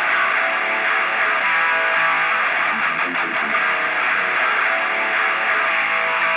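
Background music: a rock guitar intro that sounds thin, with its deep bass and high treble cut away, playing steadily.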